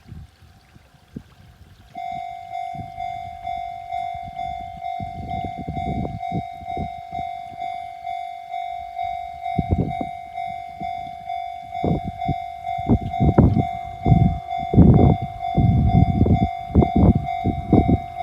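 A Japanese level crossing alarm starts about two seconds in and keeps ringing, an electronic bell repeating about twice a second. Under it an electric train approaches and passes, its wheels thumping over the rail joints, loudest near the end.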